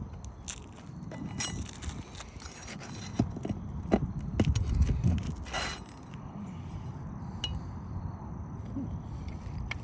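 Metal roofing tool prying nails out from under asphalt shingles: irregular clinks, knocks and scrapes as the bar works each nail loose.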